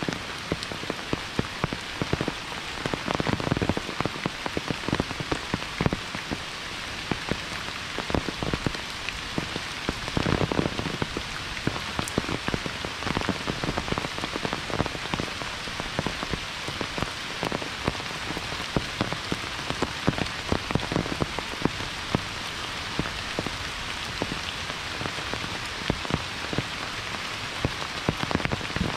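Steady monsoon rain, a continuous hiss with many sharp drops striking close by.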